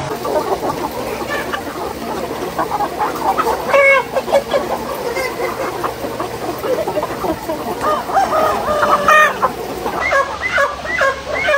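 A flock of chickens clucking and calling all together, with a couple of louder calls standing out and a quick run of repeated clucks near the end.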